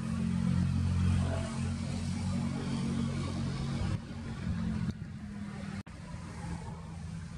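Low, steady engine rumble with a hiss of noise over it. It steps down in level about four and then five seconds in, and cuts out for an instant near six seconds.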